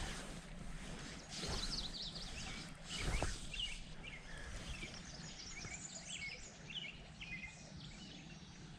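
Several birds chirping and singing in short repeated phrases over a steady low background rush, with two brief louder swishes about one and a half and three seconds in.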